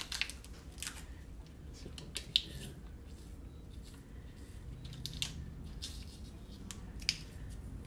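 Crinkling and crackling of a small paper-backed plastic blister packet being worked open by gloved fingers: a series of short crackles and sharp clicks, the sharpest about two and a half seconds in and another near the end.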